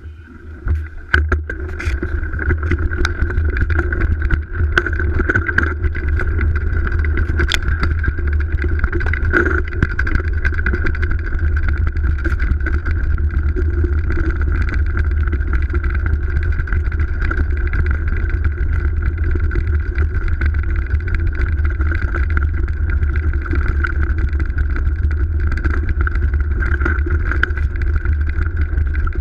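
GT DHI downhill mountain bike rolling down a snowy trail, heard through a GoPro fixed to the bike: a steady low rumble with a constant higher whine over it, and a few sharp knocks in the first seconds.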